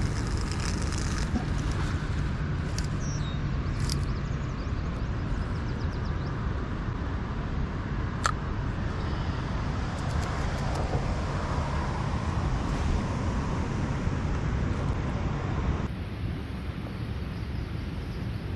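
Steady low outdoor rumble with a few sharp clicks, the clearest about eight seconds in; the background changes abruptly near the end.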